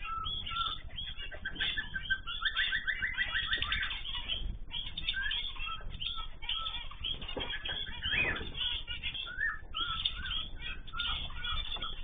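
Several small aviary finches chirping and calling over one another in short, overlapping notes, with a fast trill of quickly repeated notes a couple of seconds in.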